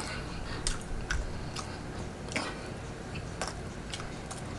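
Close-miked chewing of food, with irregular wet mouth clicks and smacks.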